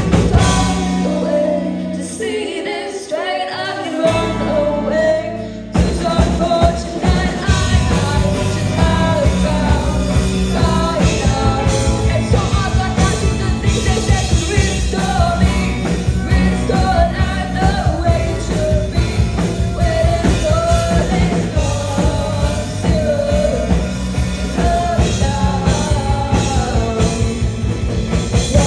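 Live rock band with a singer playing an indie rock song on guitar, bass and drums. The first few seconds are a sparser passage with the bass and drums mostly out; the full band comes back in about six seconds in.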